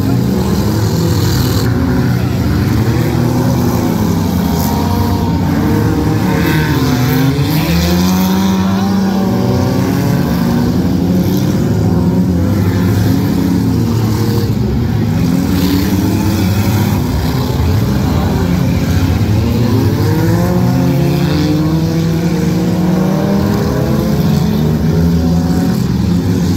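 Several demolition derby car engines revving hard at once, their pitches rising and falling and overlapping, with now and then the crunch of cars ramming each other.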